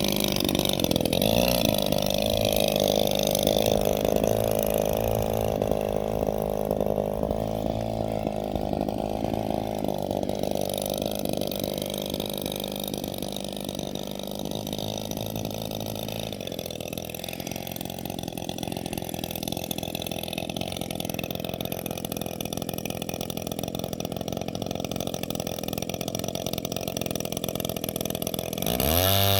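40cc boxer two-stroke model airplane engine running in flight, its sound growing fainter and then holding steady. Near the end the pitch rises sharply and it gets louder.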